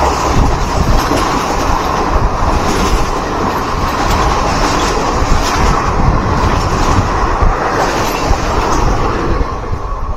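Garib Rath Express coaches passing close alongside, heard from the open doorway of a moving train: a loud, steady rush of wheel and wind noise with repeated wheel clacks. The rush eases near the end as the last coach goes by.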